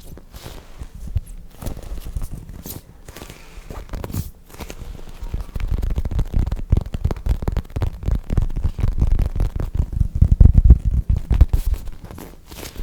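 Soft foam squishy toys squeezed and rubbed by hand close to the microphone: a dense run of soft crackles and low thumps that grows busier and louder about halfway through, loudest near the end.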